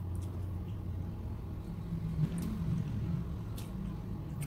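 A steady low rumble in the background, with a few faint clicks and smacks of eating by hand.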